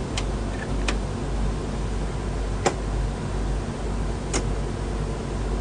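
Steady low rumble and hiss of an Airbus A320 flight deck, with a few sharp clicks. The click about four seconds in is a light switch being flipped on the overhead panel.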